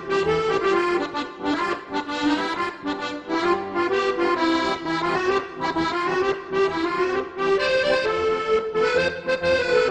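Instrumental background music carrying a melody of notes that change several times a second.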